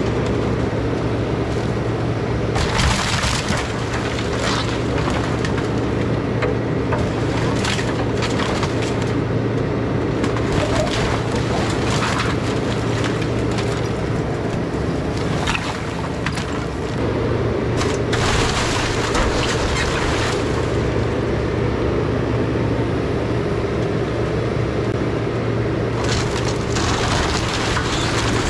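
Takeuchi TB2150 excavator's diesel engine running steadily under load while its bucket and thumb tear into a wooden house. Timbers crack, splinter and crash down in several bursts, the longest about 18 seconds in.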